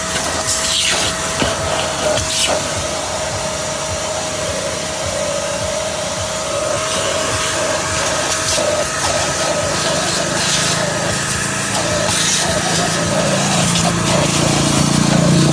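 A small motor runs steadily with a constant whine, with a few clicks and knocks in the first couple of seconds. Toward the end a lower running note comes up and gets louder.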